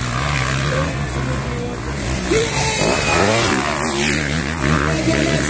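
Motocross bikes' engines revving during a race, running steadily and then rising and falling in pitch several times around the middle as the throttle is worked.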